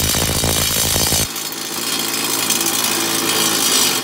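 Cordless impact driver with a 24 mm socket hammering at a stubborn mower-blade centre nut to break it loose. The sound changes about a second in, losing its low rumble and going on as a steadier, higher rattle.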